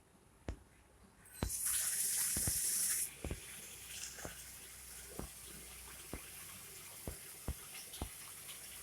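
Water running from a tap: it starts about a second in with a strong hiss for about two seconds, then settles to a quieter steady stream. Faint ticks come about once a second.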